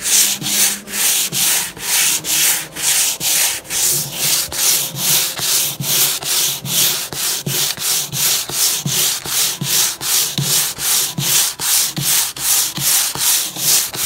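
Hand sanding with a worn piece of 240-grit sandpaper: steady back-and-forth strokes, about three a second, across a shellac-finished wood surface, scuff-sanding the last coat of shellac to take its shine off.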